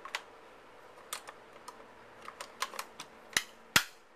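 Metal clicks and clacks of an M1 Garand's trigger group and trigger guard being worked back into the stock, ending in two sharp, loud snaps in quick succession a little after three seconds in.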